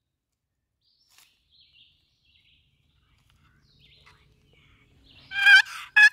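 Hand-operated turkey call sounding a quick series of yelps, about three a second, starting about five seconds in. Before it only a few faint bird chirps are heard.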